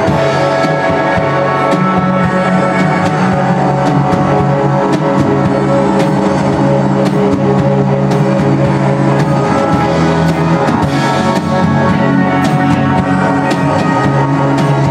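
Indie rock band playing live: electric guitars and keyboard holding steady sustained chords over a drum kit, with regular sharp cymbal and drum hits.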